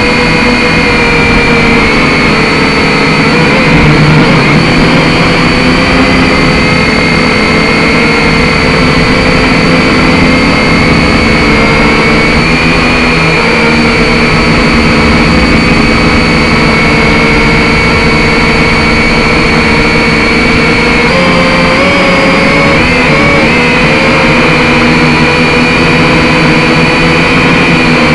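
A drone's electric motors and propellers whining steadily, several pitches held constant over a rushing haze, with brief pitch wobbles a little past the middle as the motors adjust speed.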